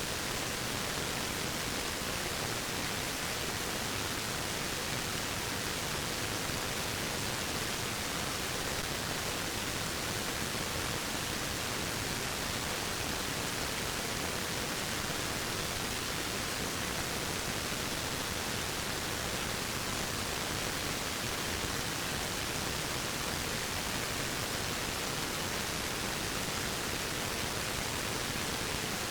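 Waterfall: falling water making a steady, unchanging rush with no separate splashes or other events.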